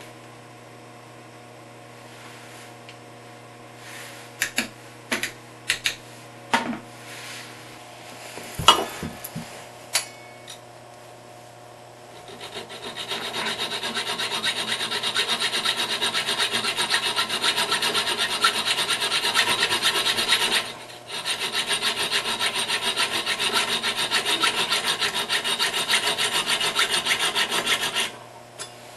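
Small hacksaw cutting through the protruding end of a toilet's metal closet bolt at the base: quick, even back-and-forth strokes, starting a little under halfway in, with a short break and stopping just before the end. Earlier, a handful of sharp clicks and knocks.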